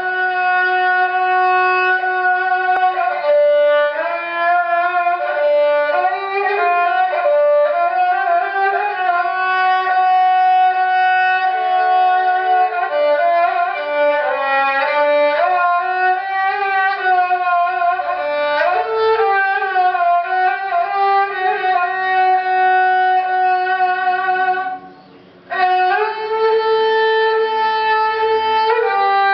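Klasik kemençe (Politiki lyra) with a maple body and cedar soundboard, bowed in a melody of held notes with small slides between them, with a brief break about 25 seconds in.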